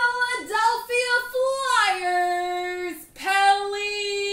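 A high singing voice holding long notes, sliding down to a lower held note about two seconds in, then breaking off briefly and coming back on a held note a little higher.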